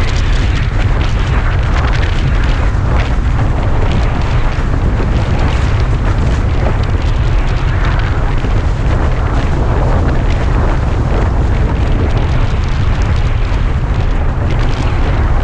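Heavy wind buffeting the action camera's microphone, with water rushing and splashing under a windsurf board as it moves across choppy water.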